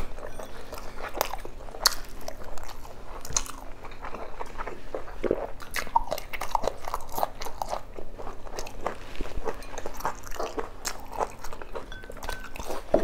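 Close-miked mukbang eating: a person chewing and biting pan-fried salmon with rice and a fresh red chili, with many irregular crunches and wet mouth clicks.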